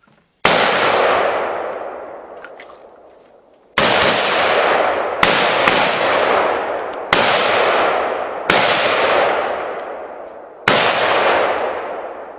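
Seven pistol shots fired one at a time over about ten seconds, mostly a second or more apart, with two in quick succession in the middle. Each shot is sharp and trails off in a long echo.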